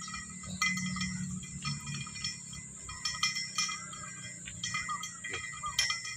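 Light metallic clinking and scraping as a measuring cable is fed down a steel deep-well pipe to find the water level, in short irregular ticks.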